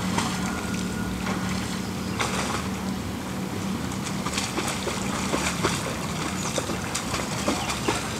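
Water splashing and sloshing as a bicycle is ridden through deep lake water with a Labrador swimming alongside, in irregular splashes throughout. A steady low hum fades out about three seconds in.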